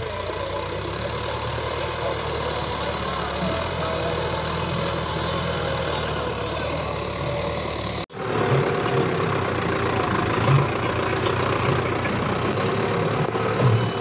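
Sonalika tractor's diesel engine running steadily under load while pulling a cultivator through the soil. The sound breaks off for an instant about eight seconds in and comes back a little louder.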